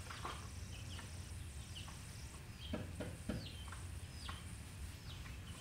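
Faint, high chirps from a small bird: about seven short falling notes at irregular spacing, with a couple of soft clicks and a low steady hum underneath.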